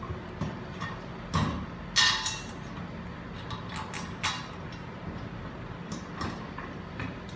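Scattered light clinks and knocks of mounting hardware being handled and fitted by hand: a metal strut, standoffs and wall washers, with a few sharper knocks about one and a half, two and four seconds in.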